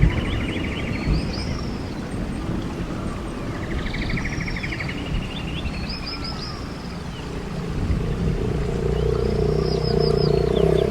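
A bird-like song repeating the same short phrase, a fast trill with high arching chirps, every two to three seconds, over low rumbling noise. A steady low engine hum comes in about eight seconds in.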